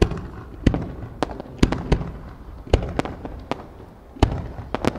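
Fireworks going off in quick, irregular succession: about a dozen sharp bangs, each with a short echo.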